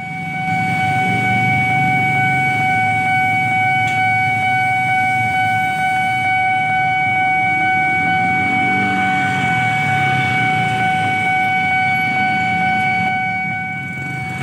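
Level-crossing warning alarm sounding one unbroken electronic tone, warning that a train is coming. Engine and traffic rumble runs underneath.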